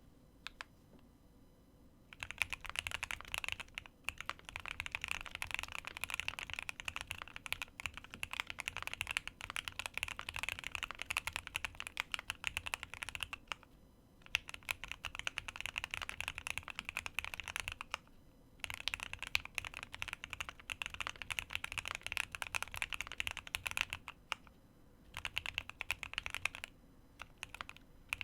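Fast typing on a QK75 mechanical keyboard with Gateron North Pole Yellow linear switches, lubed with a Krytox 105/205 mix, in an aluminium plate with full foam, under GMK Dandy keycaps: a dense run of key clacks in several bursts with brief pauses between them.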